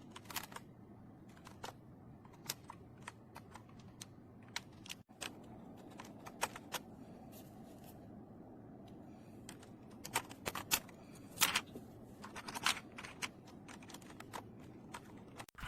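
Typing on a Keychron C2 full-size mechanical keyboard with Keychron Brown switches: irregular keystroke clacks over a steady low background noise, coming thicker about ten seconds in.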